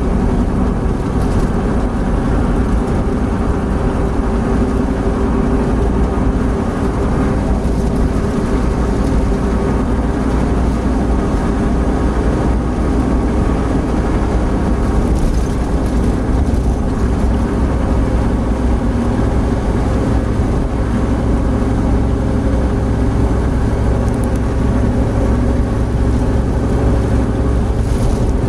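Opel Blazer at highway speed heard from inside the cabin: a steady, loud drone of engine, drivetrain and tyre-on-road noise as it gently gains speed from about 100 to 110 km/h.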